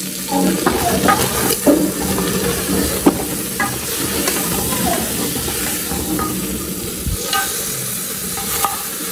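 Pork and bacon pieces sizzling as they fry in an aluminium pressure cooker, stirred with a spatula that scrapes and knocks against the pot now and then.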